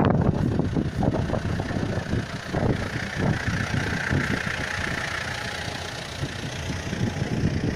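Engines of parked Mitsubishi Pajero SUVs idling, with an uneven low rumble of wind on the microphone.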